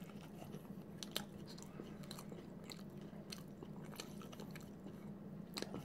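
Faint chewing of a soft tortilla chicken wrap: a bite, then scattered small wet mouth clicks and smacks, over a steady low hum.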